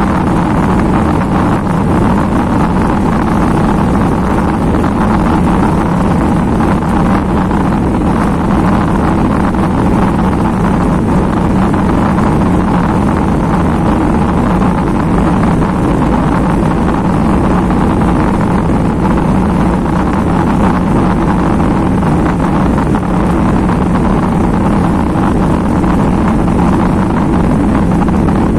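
Jet airliner engines at takeoff power: a loud, steady rush of engine and air noise with a deep rumble that keeps an even level throughout.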